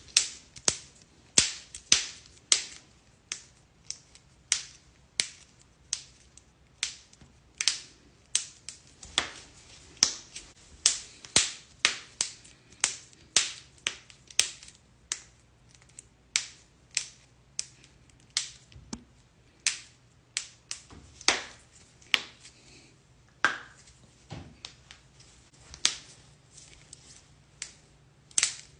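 Finger knuckles cracking: a long string of sharp pops, about two a second, some loud and some faint.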